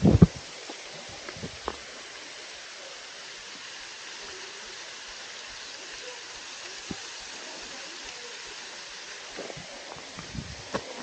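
Steady rush of falling water from a waterfall or stream, with a loud thump right at the start and a few light knocks near the end.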